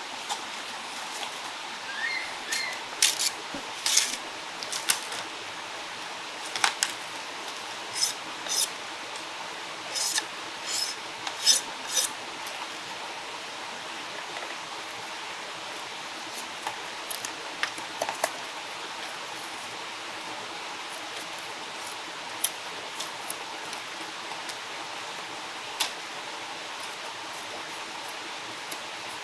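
A steady rush of running stream water. Over it comes a run of sharp knocks and cracks, some with a bright ring, for the first dozen seconds, then a few fainter clicks later on.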